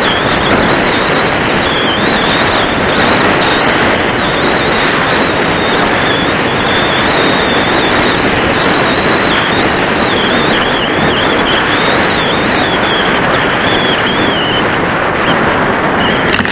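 Steady loud rush of air buffeting the onboard camera's microphone as an RC glider flies, with a thin wavering high whistle above it. Near the end the glider touches down in long grass with a brief rustling crunch.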